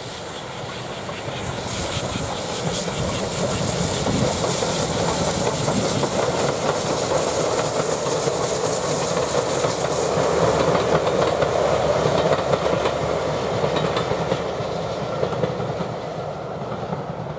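GWR Prairie tank engine 4144 and its coaches passing close by, growing louder to a peak about two-thirds of the way through and then fading, with the wheels clicking over the rail joints.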